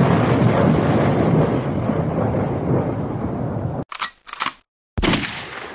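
Intro sound effects: a loud low rumble that cuts off abruptly about four seconds in, followed by two quick sharp bursts and then a third that fades out over about a second.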